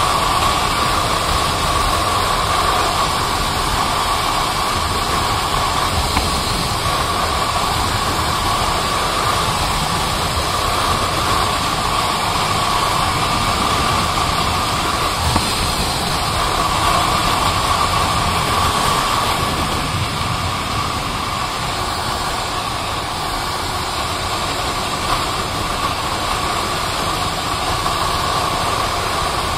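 Motorcycle engine running steadily at cruising speed, mixed with the rush of wind over the microphone. The level eases slightly about two-thirds of the way through.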